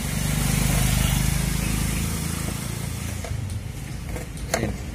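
A motor vehicle's engine runs in the background, swelling over the first couple of seconds and then easing off. Near the end come a few sharp plastic clicks as a wiring connector is handled.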